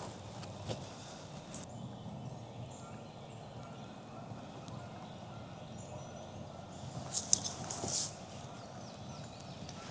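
A wild turkey gobbling, a short rapid rattling call about seven seconds in.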